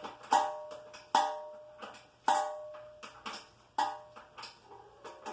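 Ratcheting speed wrench tightening the nut on a toilet closet bolt. It makes a series of sharp metallic clicks, each ringing briefly, about one a second as the wrench is swung back and forth on the nut.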